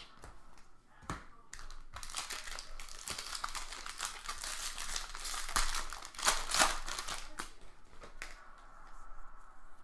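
Wrapper of a baseball card pack crinkling and tearing as it is ripped open and peeled off. It runs for several seconds as a dense crackle with small clicks, loudest near the end, then dies down.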